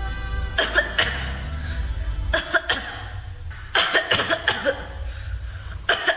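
A person coughing in four short bouts of several quick coughs each, over a steady low hum.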